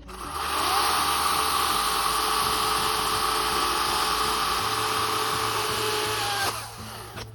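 EGO battery-powered chainsaw spinning up about half a second in, running at full speed with a steady high whine, then cutting off abruptly near the end.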